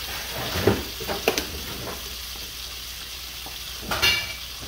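Butter melting and sizzling in a hot skillet, a steady crackling hiss, with a few brief knocks, the last near the end.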